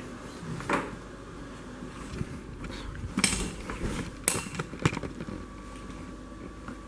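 Handling noises: a few brief knocks and rustles, the loudest about three to five seconds in.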